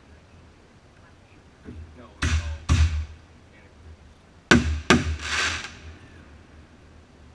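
Aerial fireworks going off: sharp bangs in two pairs about half a second apart, the first pair about two seconds in and the second about four and a half seconds in. A short hiss follows the second pair as the shell's sparkling stars spread.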